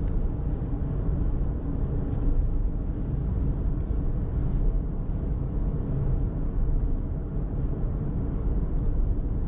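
Steady low road rumble inside a car's cabin as it cruises on a smooth asphalt highway: tyre and engine noise at an even level.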